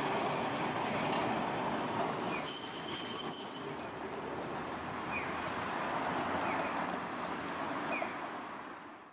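Tosaden street trams rolling through a road junction, wheels rumbling on the rails, with a thin high-pitched wheel squeal for about a second starting about two and a half seconds in; cars pass as well.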